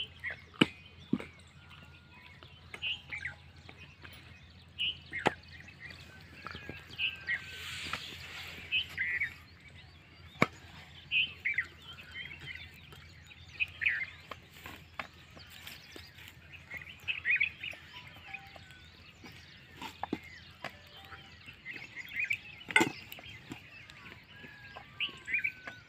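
Many short bird chirps and calls, with scattered sharp clicks and taps, the loudest near the end.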